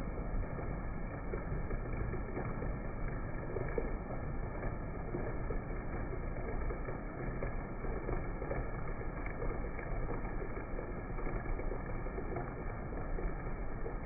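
Heavy rain falling, a steady, even rush of noise with no distinct drops standing out.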